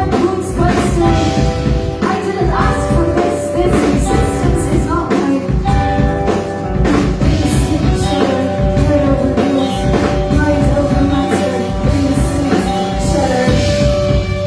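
Rock band playing loudly: drum kit keeping a steady beat under sustained guitar lines.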